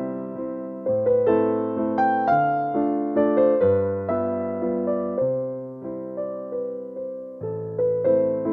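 Background music played on piano: single notes and chords struck every half second to a second, each fading out before the next.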